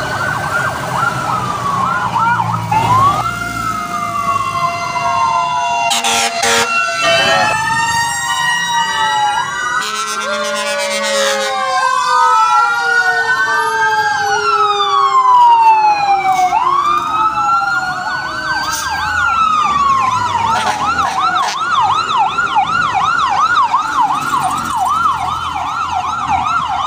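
Several fire truck sirens wail at once, their pitches sliding slowly up and down out of step with each other. From about two-thirds of the way in, one switches to a fast yelp that rises and falls about three times a second.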